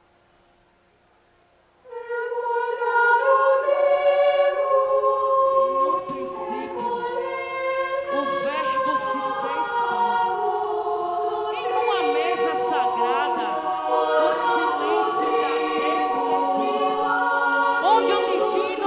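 Near silence, then about two seconds in a choir starts singing long held chords, with several voices overlapping.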